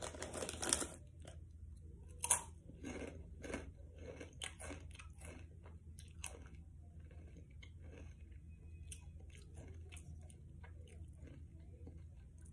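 Someone chewing crunchy snack chips, a run of faint, irregular crisp crunches close to the microphone.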